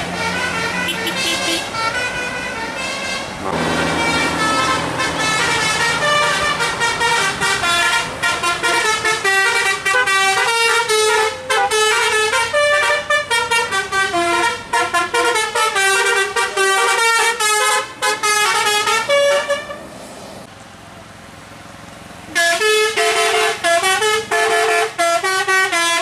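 Tour bus "telolet basuri" musical air horn playing quick melodic runs of short stepping notes over the bus engine running. The horn stops for a couple of seconds about twenty seconds in, then starts a new run near the end.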